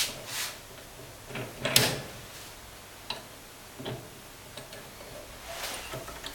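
Scattered metal clicks and knocks as a unit injector is seated and clamped in a steel injector clamping stand. The loudest knock comes about two seconds in.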